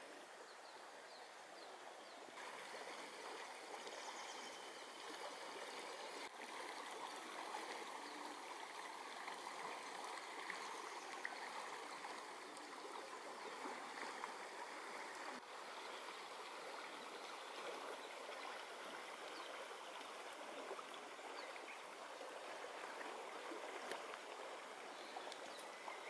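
Shallow mountain river, the Azusa River, babbling over a gravel bed: a faint, steady rush of running water.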